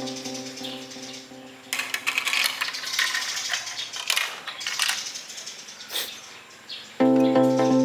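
Marbles rolling and clattering down a building-block marble run, a dense string of small clicks and rattles. Background music fades away in the first second or two and cuts back in suddenly near the end.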